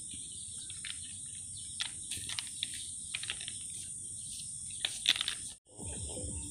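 Birds chirping in short, scattered calls over a steady high-pitched insect drone, with louder chirps about five seconds in. The sound cuts out briefly near the end.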